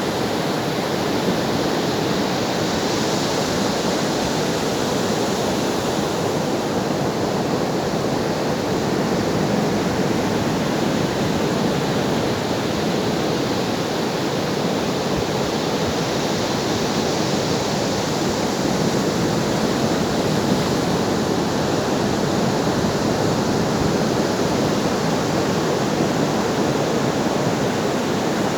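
Ocean surf washing in: a steady, continuous rush of waves with only slight, slow rises and falls.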